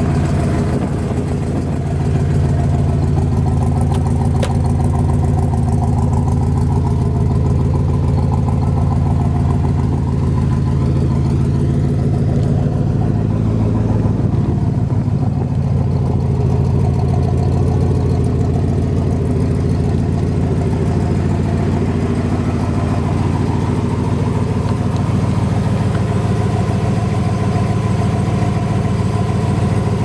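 A 1966 Corvette's 427 cubic inch big-block V8 idling steadily through its side-exit exhaust pipes.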